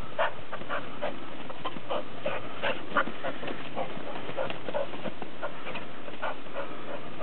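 Springer Spaniel panting, in short, uneven breaths about three a second.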